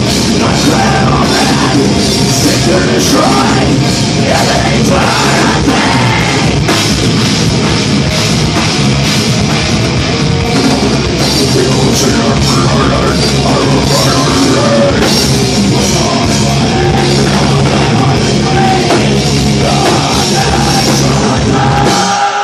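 Heavy metal band playing live, with distorted electric guitar and drum kit, loud and dense, stopping abruptly at the end of the song near the end.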